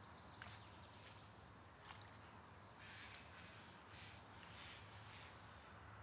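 A bird giving short, very high-pitched calls, about seven of them, a little under one a second, faint over quiet open-country background.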